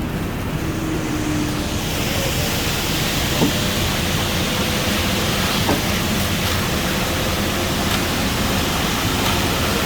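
Ready-mix concrete truck running steadily while discharging concrete, with a rushing hiss that swells about two seconds in and a few light clicks.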